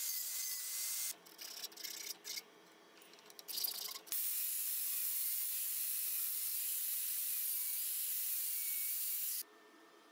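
Angle grinder cutting and grinding a thin steel strip: a steady, loud hissing grind with a slightly wavering motor whine. It runs for about a second, stops for a few seconds of light clattering, then runs again for about five seconds and cuts off sharply near the end.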